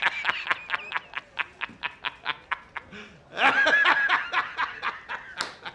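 A man laughing hysterically in rapid high-pitched cackles, about five a second. About three and a half seconds in they swell into one long, loud, high laugh, then fall back to short cackles.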